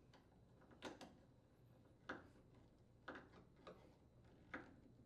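Faint, separate clicks and light knocks, about one a second, from hand work on an Electrolux electric dryer's door hinge and its screws.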